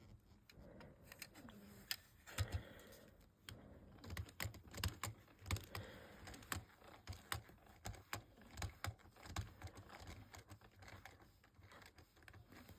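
Small plastic mini building blocks clicking and tapping as they are handled and pressed together, a quick irregular run of light clicks with a few louder snaps.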